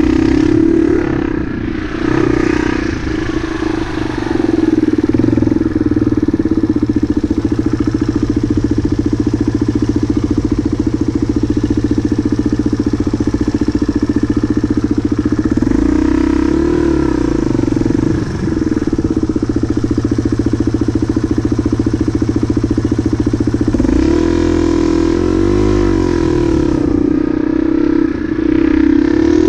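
Motorcycle engine running at low speed, heard from on the bike, its revs rising and falling with the throttle a few times and easing off briefly near the start and again near the end.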